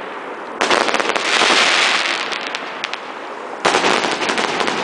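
Fireworks bursting overhead: two sudden bangs about three seconds apart, each followed by a couple of seconds of dense crackling that fades away.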